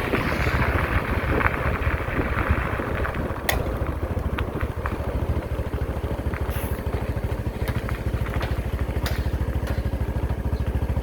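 Diesel engine of heavy road-paving machinery running steadily with a fast, even pulse. A rougher hiss drops away about three seconds in, and a few sharp clicks and clatters come after it.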